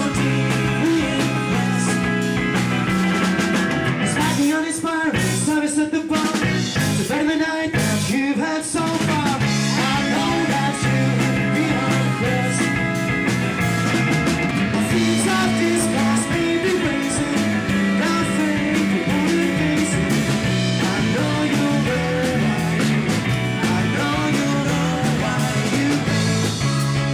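A rock band playing a song with sung vocals. About four seconds in, the band breaks into a few seconds of short stop-start stabs before the full groove returns.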